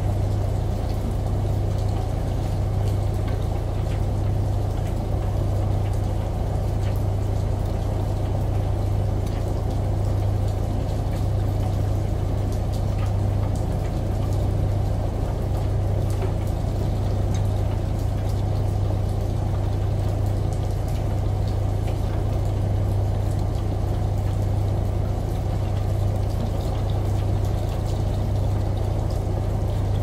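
Front-loading washing machine in its wash cycle, the drum tumbling laundry through water. Water sloshes over a steady low hum.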